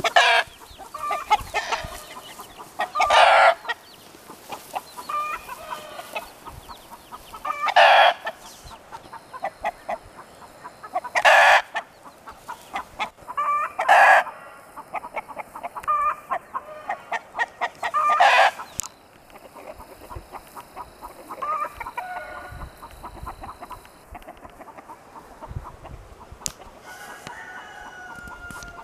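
Chickens clucking: a run of soft short clucks, broken about every three to four seconds by a loud short call, six in all, the last about two-thirds of the way through.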